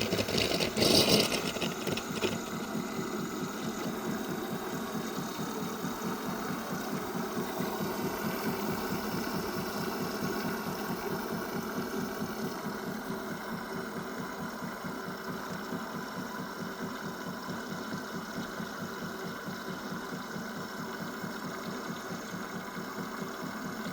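Miele CVA 6401 built-in coffee machine frothing and dispensing milk: its pump runs with a steady, fast-pulsing buzz, with a brief louder hiss about a second in.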